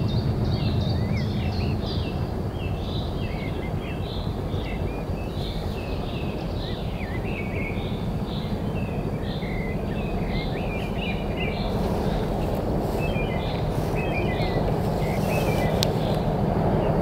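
Small birds chirping and singing over the steady low rumble of a distant diesel train's engine, which grows louder toward the end as it approaches.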